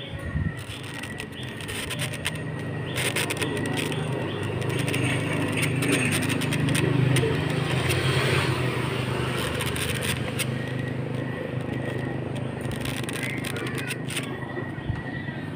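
Felt-tip marker scraping and squeaking on a styrofoam food box lid, over a low rumble that swells through the middle and eases off near the end.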